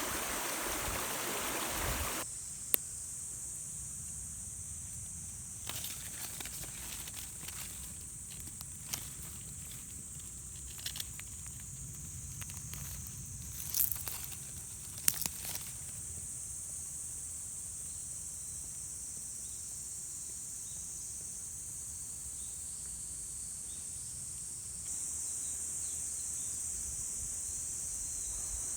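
A rushing noise that cuts off abruptly about two seconds in. Then a quiet outdoor background with a steady high hiss, scattered rustles and sharp clicks through the middle, and the hiss grows louder near the end.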